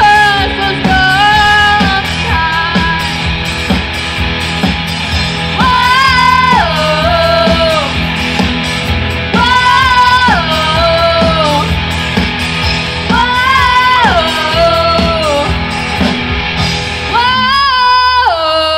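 Live rock band playing with drums, electric guitars, bass and keyboard under a singer's voice; the sung phrases come about every four seconds, each sliding down in pitch, and a long held note starts near the end.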